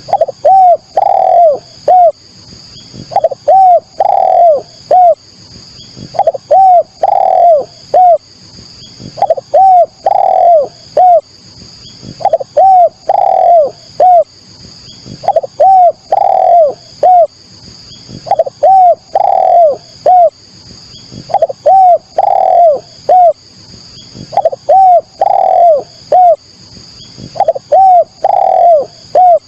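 Spotted dove (tekukur) cooing in repeated phrases of four or five arched coos, about one phrase every three seconds. A faint steady high buzz runs underneath.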